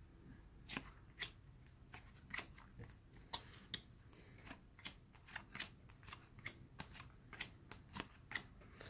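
2022 Topps Series One baseball cards being flipped through by hand one at a time, a faint light click or swish as each card is slid off the stack, roughly two a second at an uneven pace.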